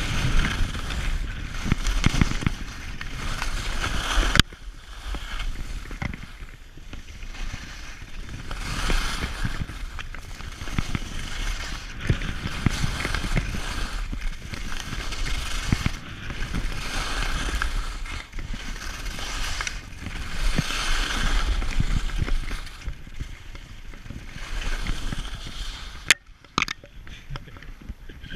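Skis scraping and hissing over packed snow at speed, swelling and fading every few seconds, with wind rumbling on the camera's microphone. Near the end it quiets and a few sharp clicks sound.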